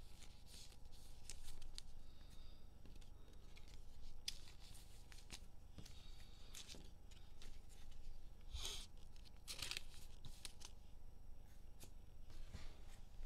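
Trading cards and cellophane pack wrappers being handled on a table: short, scattered rustles, flicks and tearing sounds as cards slide against each other and wrappers crinkle.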